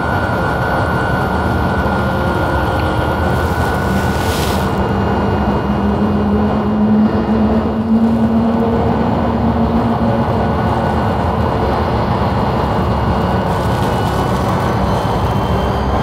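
Motorhome's powered stabilizer jacks extending to level the coach: a steady motor hum with a thin whine, running the whole time the jacks lower onto their pads.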